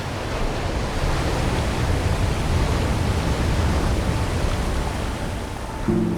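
Steady rushing noise, heaviest in the low end and a little louder through the middle, with a few held low tones coming in just before the end.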